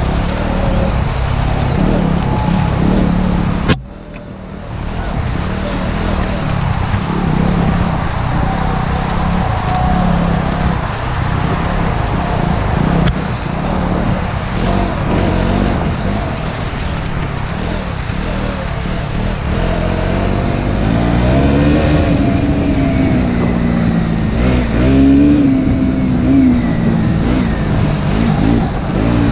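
Motorcycle engine heard from a camera riding on the bike, its pitch rising and falling with the throttle. A sharp click about four seconds in, after which the sound dips briefly before the engine returns.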